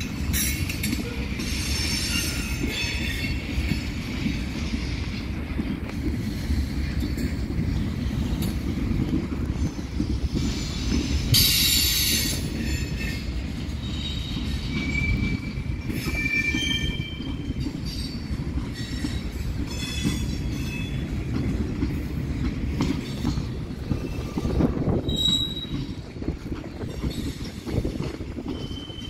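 CSX freight train cars rolling past with a steady low rumble, their wheel flanges squealing in short high-pitched squeals again and again. There is a louder screech about eleven seconds in.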